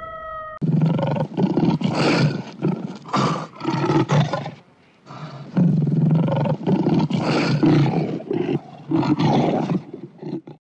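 Lions growling and snarling in repeated rough bursts while wrestling in play, with a short lull about halfway through. At the very start, a wolf's steady howl cuts off abruptly.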